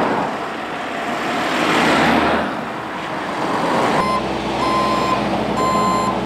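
Cars passing one after another on the road. About four seconds in, a reversing alarm starts beeping roughly once a second over a steadily running diesel engine, from the road roller working the road.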